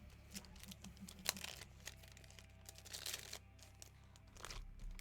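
Trading cards and their card-box packaging being handled and opened: faint rustling of wrapper and cardboard with scattered light clicks, a little busier about a second in, at three seconds and near the end.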